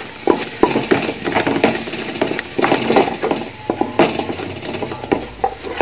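Wooden spatula scraping and knocking against the bottom and sides of a large metal pot, stirring a thick frying onion-and-spice masala in quick, repeated strokes, a few a second.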